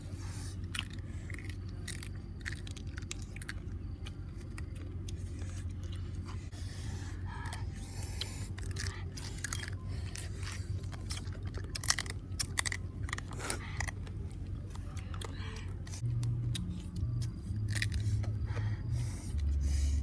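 Eating at close range: chewing, with irregular small clicks and scrapes as shells are picked at and handled. A low steady hum lies underneath and grows louder near the end.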